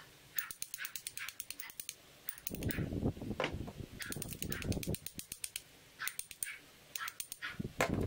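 A small hammer tapping quickly and lightly on the head of a steel bolt held in the hand, metal on metal, in several short runs of rapid taps with pauses between them and a few duller knocks.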